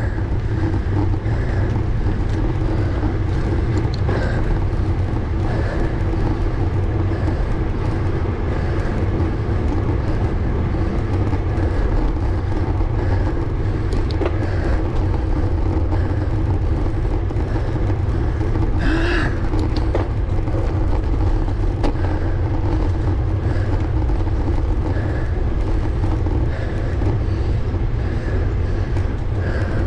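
Steady low rumble of wind and road noise on a bike-mounted GoPro as a road bike climbs a tarmac lane, with a brief sharper noise about two-thirds of the way through.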